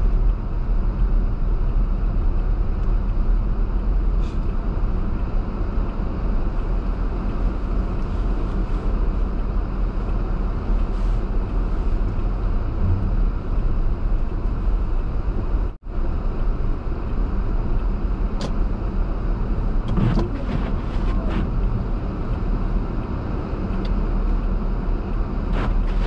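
A car driving on a snowy road: a steady low rumble of road and engine noise with tyre noise. It cuts out for an instant about two-thirds of the way through.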